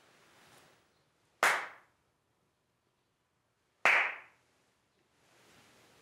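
Two sharp ritual hand claps (kashiwade) by a Shinto priest praying before the altar, about two and a half seconds apart, each trailing off in a short echo from the wooden hall. The claps call on and greet the kami during the prayer.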